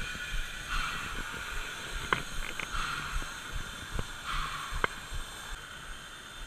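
Water pouring from a canvas hose into a steam locomotive's water tank, with hissing puffs that come and go every second or so and two sharp clicks.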